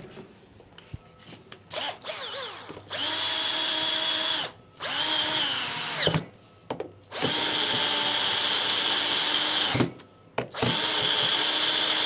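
Cordless drill driving screws into the fridge's top hinge: four runs of the motor whining steadily for a couple of seconds each, with short pauses between, the pitch dipping near the end of the second run.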